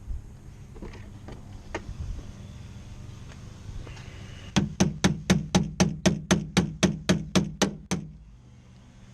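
A quick, very even run of about fifteen knocks, four or five a second, lasting about three seconds, over a low steady hum; a few fainter clicks come before it.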